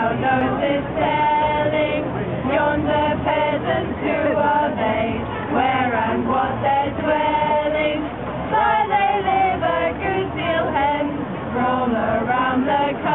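A small group of carollers singing a carol together, unaccompanied, mostly women's voices with a man or two among them.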